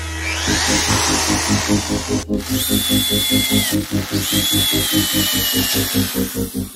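Hand-held electric drill boring through a metal bar. The motor's pitch rises near the start, then the bit cutting the metal gives a high squeal in two stretches of about a second each. Background music with a steady beat plays throughout.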